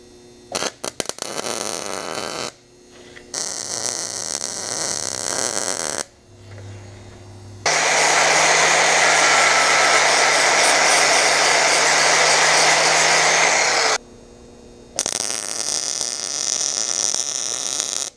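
A few clicks, then MIG welding on steel tubing in separate runs, each a steady hiss that starts and stops abruptly; the longest run, in the middle, lasts about six seconds.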